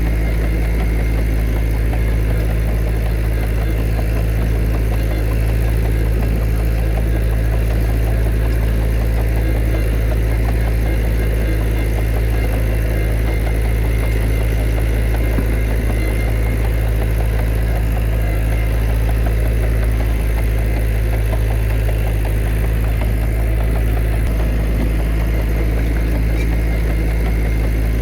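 Heavy diesel engine of earthmoving machinery running steadily at an even pitch, with no revving or changes in load.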